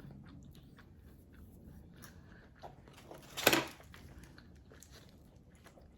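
Close-up chewing and crunching of crackers, mostly faint small crunches, with one loud crunch about three and a half seconds in.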